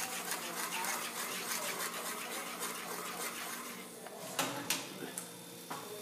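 A utensil stirring and scraping tomato sauce in a metal frying pan, a busy, rapid scraping that eases off after about four seconds. A few sharp clicks and knocks follow near the end.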